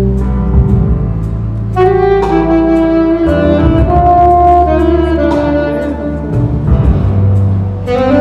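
Saxophone played live, a melody of held notes moving from pitch to pitch, with low sustained bass notes underneath.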